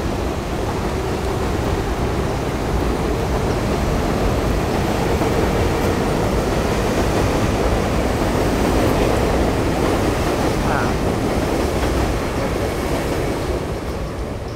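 Elevated subway train running along the overhead tracks with a steady, loud rumble that fades over the last couple of seconds.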